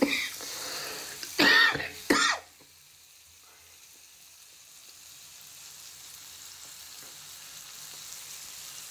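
Onion and green-chilli masala sizzling in a frying pan. A man clears his throat loudly twice about a second and a half in, and after that the sizzle is faint and slowly grows louder.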